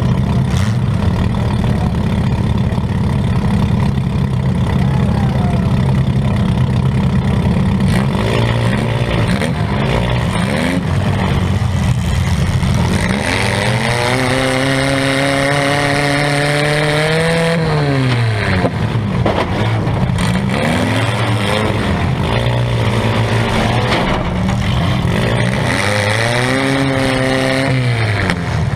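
Demolition derby compact car's engine heard from inside the stripped cab, idling steadily at first, then revving up and down from about eight seconds in. It makes one long climbing rev held for several seconds before it drops, and revs again near the end.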